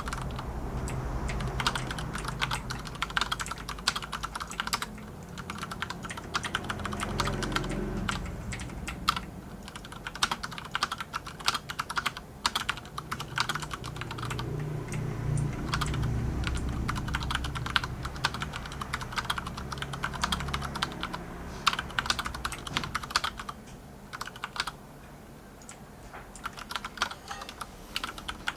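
Continuous fast typing on an Akko 9009 Retro mechanical keyboard with Cherry MX Brown switches: a dense, uneven run of key clicks and clacks, easing off briefly near the end.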